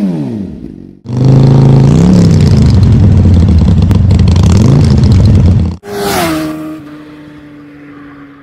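Animated-intro sound effects of a motor vehicle. A falling zoom ends, and about a second in a loud engine starts running; its pitch rises briefly twice. Near six seconds it cuts off suddenly into a swish, and a tone drops, then holds and fades.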